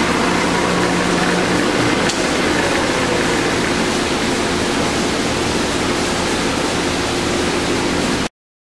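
Steady mechanical noise: an even hiss with a low hum beneath it, one faint click about two seconds in, cutting off suddenly just before the end.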